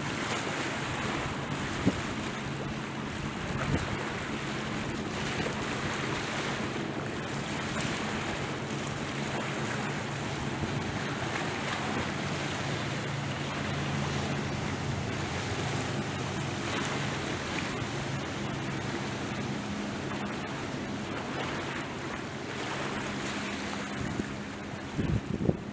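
Waves washing against the shore with wind buffeting the microphone, under the steady low drone of motorboat engines out on the water. A few sharp knocks come through, about two and four seconds in and near the end.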